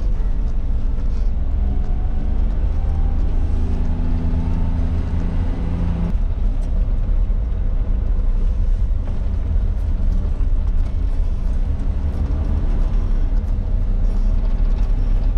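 Cabin noise of a 1996 Suzuki Jimny JA22 on the move: its 660 cc three-cylinder engine running under a steady low road rumble. A humming note climbs slightly in pitch and breaks off suddenly about six seconds in.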